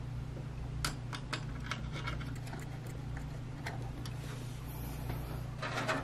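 Small irregular clicks and taps of metal and plastic as thumb screws are turned by hand to fasten a liquid-cooler pump's AM4 mounting bracket onto the CPU socket, with a short rustle near the end. A steady low hum runs underneath.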